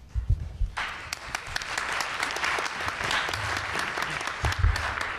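Audience applauding, a dense patter of clapping that starts about a second in and begins to fade near the end, with a few low thumps just before it starts.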